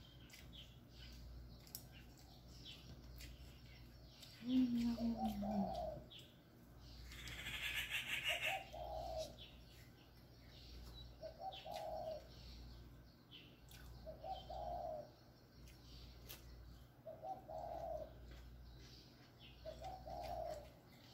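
A dove cooing: a short coo repeated about every three seconds, the first one lower and falling. Soft clicks of fingers eating from a plate, and a burst of rustling about seven seconds in.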